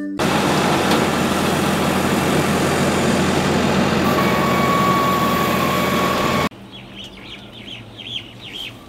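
Ruilong rice combine harvester running under load: its engine and threshing machinery make a loud, steady mechanical din, and a steady whine joins about four seconds in. A little past six seconds it cuts off abruptly, leaving a lower steady hum with short bird chirps.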